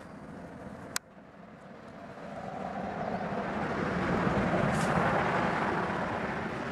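A rushing background noise that swells up from about two seconds in and stays loud, after a single sharp click about a second in.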